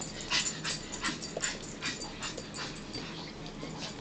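A dog panting and whimpering, with a quick breath or whine about every third of a second.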